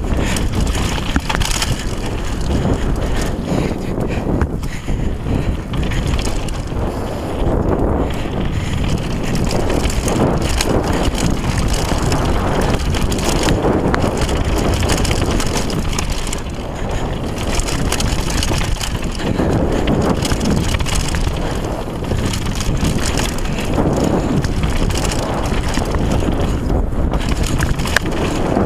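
Downhill mountain bike at speed on a dirt trail: wind buffets the action-camera microphone over tyres rolling on dirt and loose stones, with a steady clatter of small knocks and rattles from the bike.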